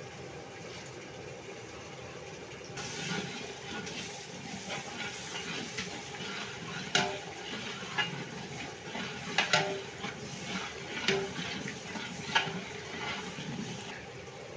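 A long metal ladle stirring thick masala in a large aluminium cooking pot, starting about three seconds in: wet scraping and slopping, with scattered clanks of the ladle against the pot. A steady low hiss runs underneath.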